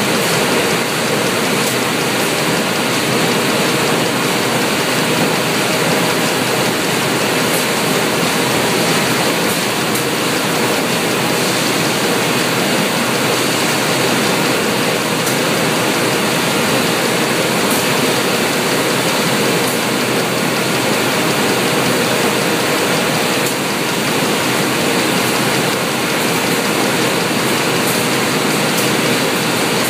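Steady, loud machinery noise from a robotic box-stacking cell and its powered roller conveyor, an even rushing din with a faint hum and a few light clicks.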